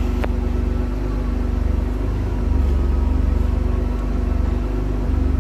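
Mitsubishi 3000GT VR4's twin-turbo V6 running steadily at low revs, a minute or so after its first start. A single sharp click comes shortly after the start.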